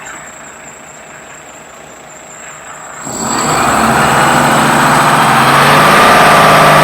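Dongfeng Longqing diesel engine running at idle, then revved up about three seconds in and held at a higher steady speed, so that the low-pressure fuel supply pressure can be checked under throttle.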